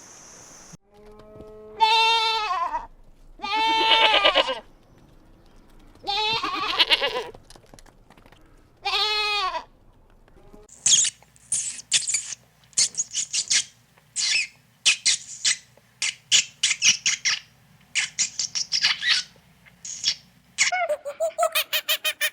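A farm animal bleating: four separate wavering calls of about a second each, spaced a couple of seconds apart. Then comes about ten seconds of quick high-pitched chirps or squeaks in short bursts.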